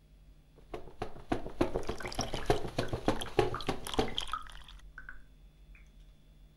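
Water spraying and splattering as long wet hair is shaken out: a dense run of quick drips and splashes lasting about four seconds, then two short faint chirps.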